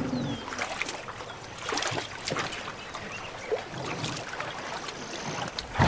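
Water splashing and dripping in irregular strokes as elephants wade and drink at a waterhole.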